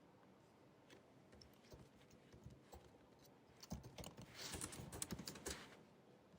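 Typing on a 2019 16-inch MacBook Pro's built-in scissor-switch keyboard: a few scattered, soft keystrokes, then a quick run of keystrokes just past halfway that stops shortly before the end.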